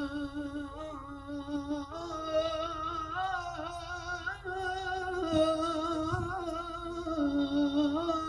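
A male vocalist singing an Arabic devotional salawat chant, drawing out long melismatic notes with a wavering pitch. The melody moves to a new note about two seconds in.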